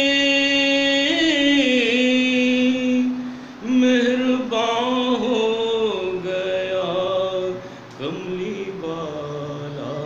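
A man singing a naat, an Islamic devotional song praising the Prophet, solo and without accompaniment. He holds long steady notes with wavering ornaments and breaks off twice for breath.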